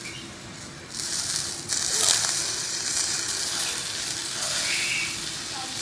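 Chilli sauce sizzling as it is brushed onto pig intestines grilling over hot embers and drips onto the coals. The hiss starts about a second in and gets louder near two seconds.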